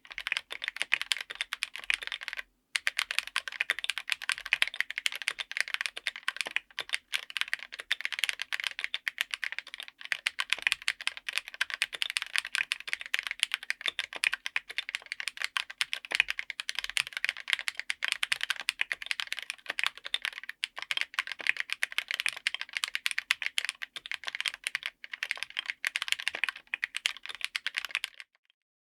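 Fast typing on a full mechanical keyboard fitted with Akko CS Crystal linear switches in polycarbonate housings on an FR4 plate. The key strokes come as a dense stream of sharp clacks, with a brief pause about two and a half seconds in, and stop just before the end.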